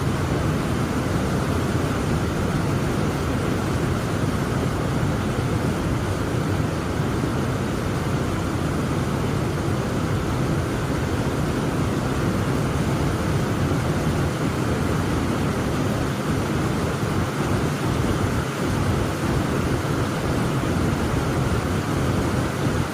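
Heavy rain falling steadily: a dense, even hiss with most of its weight in the low end.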